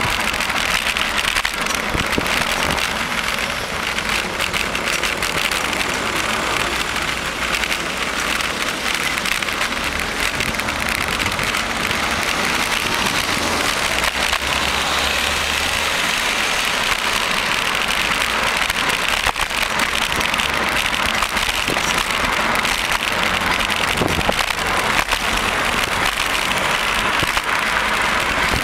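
Steady rushing noise from riding a bicycle through city streets: air and tyre noise, with low rumbling and car traffic mixed in.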